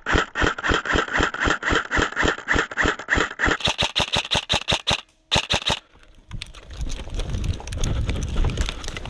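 Airsoft electric gun firing a steady, fairly slow string of shots, about six a second, for some five seconds. After a brief pause comes a short second burst. Then comes rustling and handling noise as the player moves.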